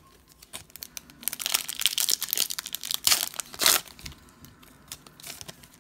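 Pokémon trading-card pack wrapper being torn open and crinkled by hand: a run of crackling and tearing with a few sharp snaps, settling into quieter rustling of cards near the end.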